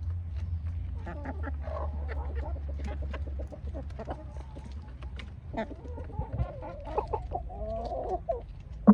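Chickens clucking and calling in short, repeated phrases while feeding, with many sharp little taps scattered throughout. A single loud knock comes right at the end.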